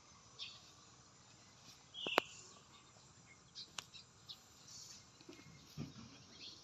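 Small birds chirping in short, scattered calls against quiet outdoor background. A sharp click sounds about two seconds in, with a fainter one near four seconds.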